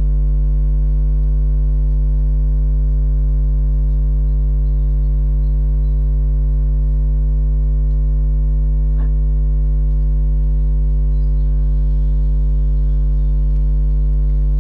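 Steady low electrical mains hum with a ladder of overtones, unchanging throughout, and one faint click about nine seconds in.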